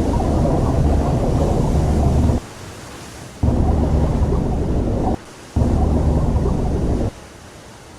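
Loud deep rumble, thunder-like, that cuts off abruptly three times and starts again twice. In the gaps, and after the last cut near the end, a quieter steady hiss of wind and sea is left.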